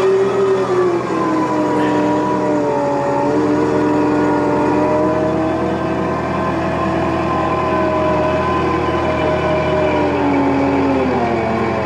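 Liebherr 314 Litronic excavator running, its diesel engine humming under a hydraulic whine that wavers and slides slowly in pitch as the boom moves the man-basket. The whine dips lower near the end.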